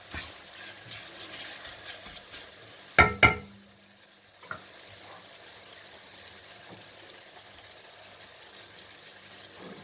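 Chopped onions and tomatoes sizzling steadily as they fry in oil in an aluminium pan, stirred with a wooden spatula at first. About three seconds in come two sharp knocks, the loudest sounds here.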